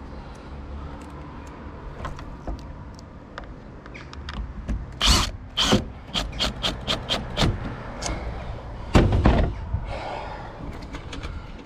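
Knocks, clicks and clunks of a Maxxfan Deluxe roof fan being worked and forced into its roof frame. A low hum runs for the first few seconds, then two loud knocks close together about five seconds in, a quick run of smaller clicks, and a heavy thump about nine seconds in.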